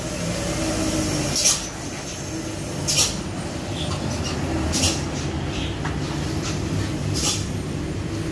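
Diesel engine of a loaded truck towing a trailer, running steadily as it passes and pulls away, with four short hisses over it.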